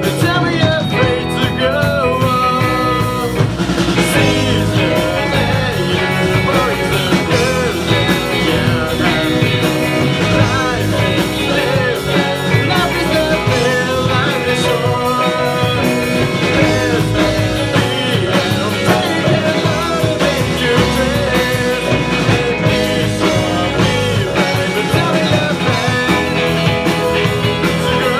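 Live rock band playing a song: drum kit, electric guitars and keyboard, with a lead vocalist singing over them.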